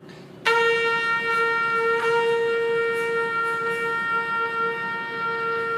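Trumpet playing one long held note, starting about half a second in and sustained steadily: a long-tone warm-up to get the lips vibrating.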